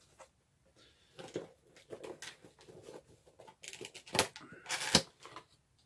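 Packaging being unwrapped by hand: scattered rustling and crinkling, with two sharp cracks about four and five seconds in.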